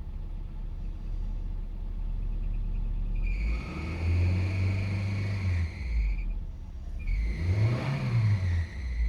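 2002 Nissan Frontier engine idling, then revved twice: held up for about two seconds a few seconds in, then a quick rise and fall near the end. A loose drive belt squeaks with each rev.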